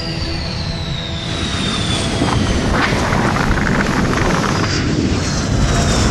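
Boeing F/A-18F Super Hornet's twin jet engines running loud as the jet speeds along the runway, with a high whine that slowly falls in pitch. The noise grows louder about two seconds in.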